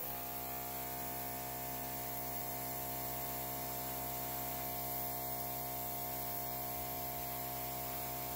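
Airbrush running steadily, a compressor's motor hum with air hissing from the nozzle.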